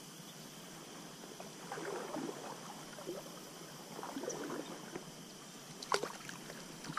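Stream water sloshing and gurgling in a few short, irregular bursts over a steady faint hiss, with a sharp click about six seconds in.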